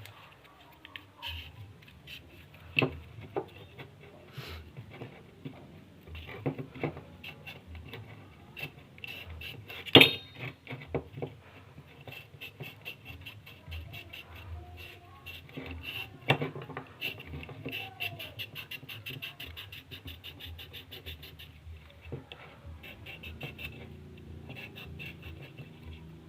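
Scattered clicks, taps and scratches of hands working with tools and small parts, with one sharp click about ten seconds in. A faint rapid high ticking runs underneath from about midway.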